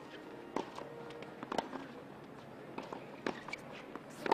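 Tennis ball struck by rackets and bouncing on a hard court during a rally: a few sharp pops a second or more apart, the loudest near the end.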